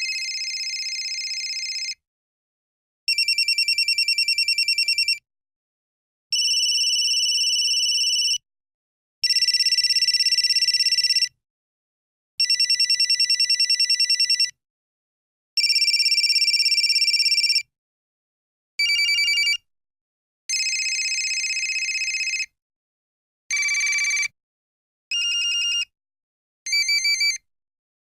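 Mobile phone ringing with an electronic trilling ring, high-pitched, in rings of about two seconds separated by short pauses. After about eighteen seconds the pattern changes to shorter rings of shifting pitch.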